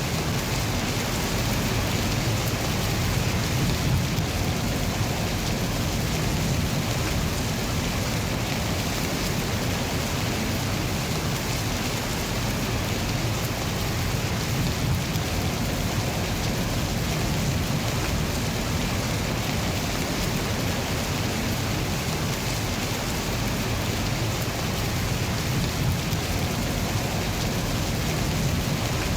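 Steady rain: an even hiss with a continuous low rumble beneath it.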